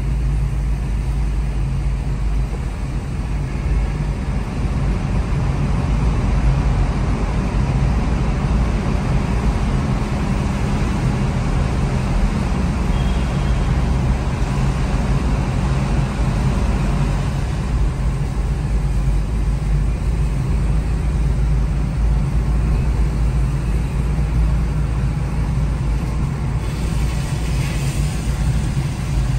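Steady road noise heard from inside a moving car: a low engine and drivetrain rumble with tyre hiss on a wet road. The hiss eases a little about two-thirds of the way through.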